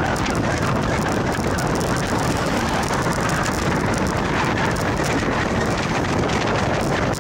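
Wind rushing over the microphone of a camera moving along an asphalt road, mixed with steady tyre rumble on the rough surface.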